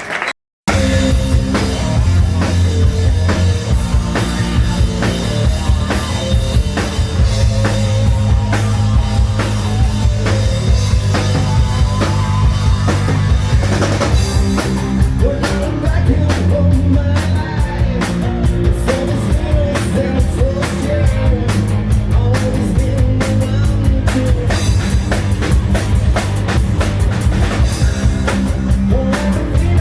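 Live hard rock band playing: drum kit, distorted guitars and bass, with a sung melody over it in the second half.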